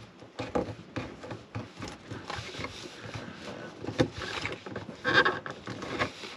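Hands handling a small plastic enclosure and its cables: irregular light clicks, taps and scraping, with a brief louder rub about five seconds in.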